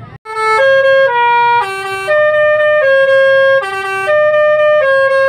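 Tour bus telolet (basuri) multi-tone musical horn playing a quick tune: a run of about nine loud held notes of several pitches at once, stepping up and down about every half second, starting a fraction of a second in.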